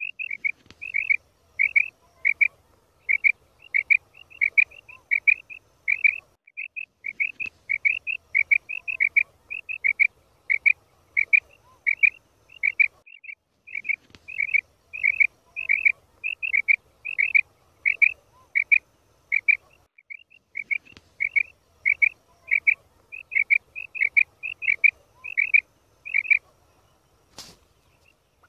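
Female quail calling: short, high call notes in quick pairs, a few a second, repeated steadily as a hunting lure call. The calls break off for about a second every seven seconds or so, and there is one sharp click near the end.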